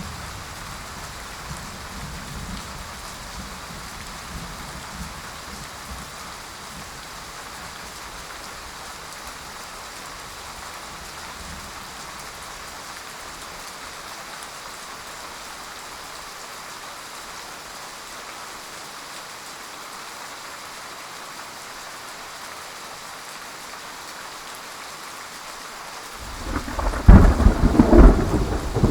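Steady heavy rain, with a low thunder rumble dying away over the first several seconds. Near the end a sudden loud thunderclap breaks in and rolls on.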